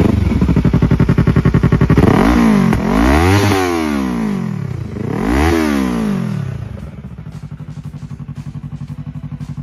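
Yamaha R3's 321 cc parallel-twin engine running through a LeoVince aftermarket exhaust that keeps its catalytic converter. The engine is revved twice, each blip rising and falling in pitch, then settles to a steady idle.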